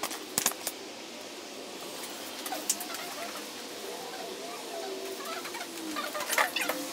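A few knocks as a wooden disc is set down on a workbench, then a wavering animal call that rises and falls in pitch through the second half.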